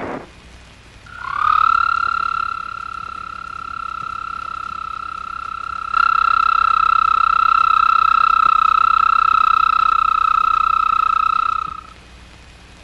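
A male toad calling with its throat sac inflated: one long, steady, high trill that starts about a second in, becomes louder suddenly halfway through and stops near the end.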